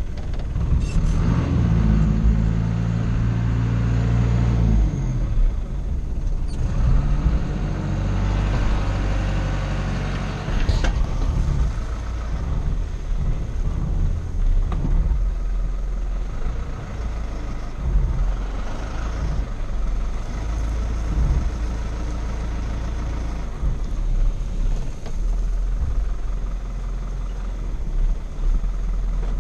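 Mazda T4000 truck's engine running and revving as the truck moves off slowly, heard from inside the cab; the engine note climbs for a couple of seconds, drops back, then rises and settles again. A few sharp knocks sound over it.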